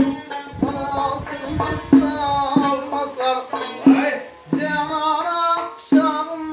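A man singing an Uzbek folk song to his own dutar, a long-necked two-string lute, with sharp percussive beats about every second or so.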